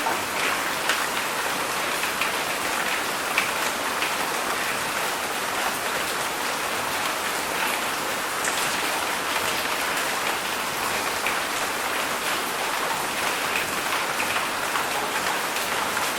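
Heavy rain falling steadily, an even hiss dotted with the sharp ticks of individual drops hitting a surface.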